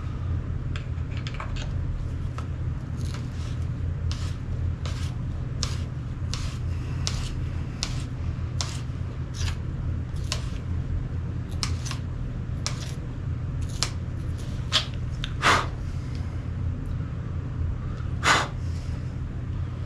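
The long stock screw of a Benelli Vinci being turned in with a hand tool: regular short clicks, about one every three-quarters of a second, with two louder clacks near the end, over a steady low hum.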